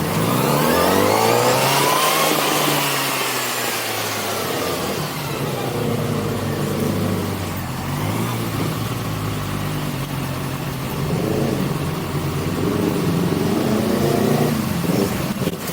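Sport motorcycle engine revving up over the first couple of seconds and easing back down, then running along steadily.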